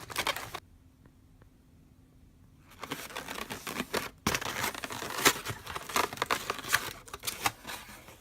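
Takeout food packaging being handled: a brief crinkle at the start, then, from about three seconds in, dense irregular crinkling and rustling as the bag or wrapper is opened.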